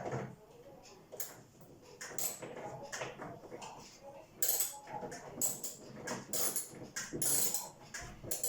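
Irregular clicks, scrapes and rattles of hard metal and plastic parts being handled while a refrigerator door is fitted onto its hinge, growing louder and busier about halfway through.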